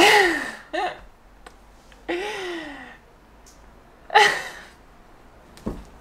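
Breathy laughter in a few separate bursts, each falling in pitch: at the start, about two seconds in and about four seconds in.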